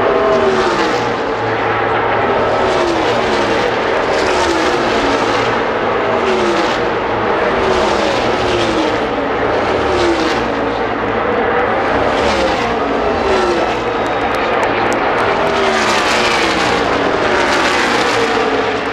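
NASCAR Cup Series stock cars' pushrod V8 engines at full throttle as the field races past, one car after another, each engine note dropping in pitch as it goes by, over a continuous blend of engine noise from the rest of the pack.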